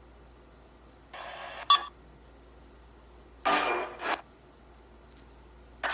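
Spirit box sweeping through radio stations: two short bursts of static and broken radio sound, about a second in and about three and a half seconds in, with a sharp click near the middle of the first. A steady high-pitched pulsing tone runs underneath.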